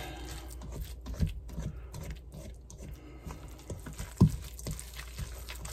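Spatula stirring thick, mayonnaise-and-sour-cream-coated cauliflower rice in a stainless steel mixing bowl: irregular soft scraping strokes as it is mixed until well combined, with one sharper knock about four seconds in.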